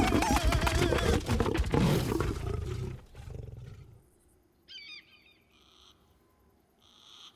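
Cartoon animal vocal sounds with slapstick clatter, loud for about three seconds and then cutting away. A short wavering squeak follows, then two soft hissy puffs.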